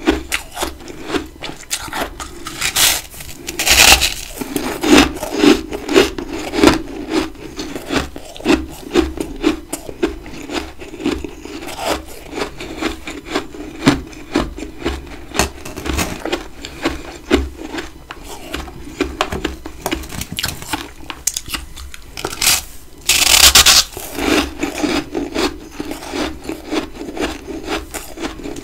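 Close-miked chewing of big chunks of freezer frost: continuous dense crunching and grinding, with a loud crunchy bite about four-fifths of the way through.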